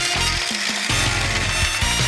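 Battery-powered vintage Tomy Panorama Rail toy locomotive running on its plastic track, its small motor and plastic gears whirring, with background music.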